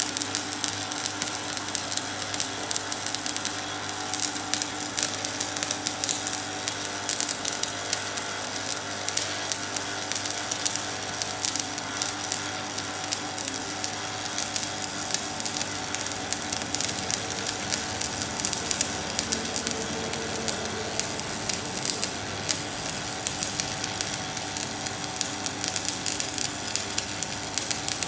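Electric arc welding: the arc's steady crackle and sizzle, with dense sharp pops throughout.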